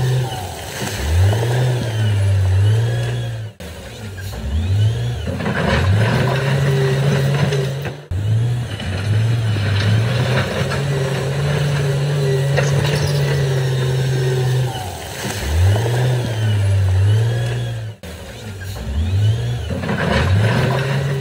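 Heavy diesel engine revving up and down under load, its pitch rising and falling again and again. The sound breaks off abruptly for a moment three times.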